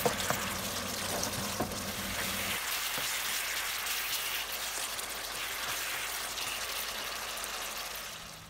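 Bean sprouts in oyster sauce sizzling in a hot non-stick pan as they are stir-fried with a spatula, with a few light knocks in the first two seconds. The sizzle fades away near the end.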